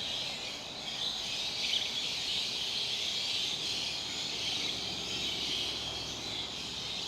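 Outdoor ambience dominated by a steady, high-pitched insect chorus.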